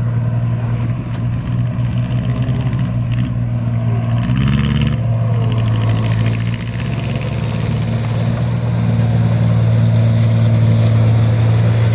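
Paddy combine harvester's engine running loudly and steadily under working load, with a brief rise in pitch about four seconds in.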